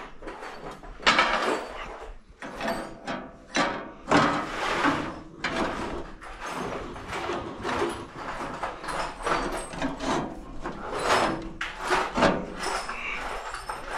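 A run of irregular knocks, clatter and scraping, with no steady engine tone, as of hands working with tools and parts.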